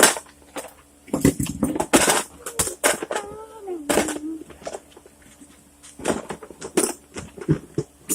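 Small fishing tackle clicking and clattering as it is put back into a plastic tackle box, in a string of separate knocks and rattles.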